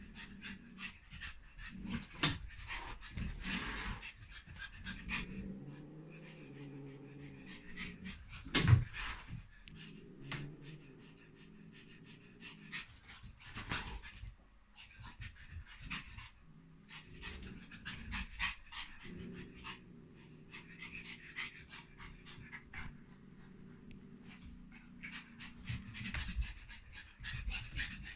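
Pug panting in quick, repeated breaths throughout, with one louder sudden sound about nine seconds in.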